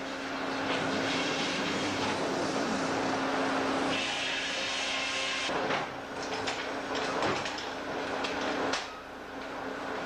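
Jackson Big Jack portable sawmill running: a steady engine hum throughout, a higher whine from about four seconds in, then a run of knocks and clatters in the second half.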